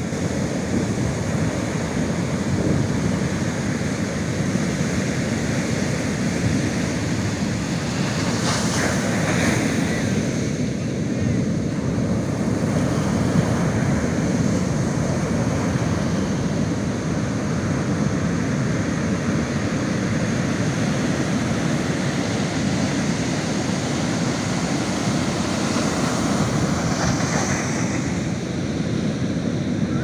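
Heavy ocean surf breaking and washing up a sandy beach: a continuous rushing wash of water. It grows brighter and hissier as closer waves break, about nine seconds in and again near the end.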